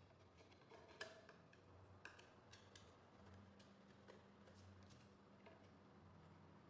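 Faint, irregular clicks and light taps of a yard sign's stake sections being fitted together and handled.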